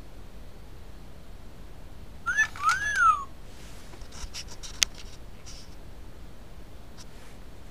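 A short high squeak that rises and falls in pitch, twice in quick succession, followed by a few light clicks and one sharp click, over a steady low hiss.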